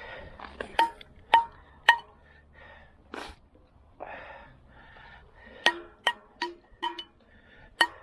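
Pieces of scrap metal clinking against one another and against the fishing magnet as they are handled, each knock ringing briefly. Three clinks in the first two seconds, then a quicker run of about six in the second half.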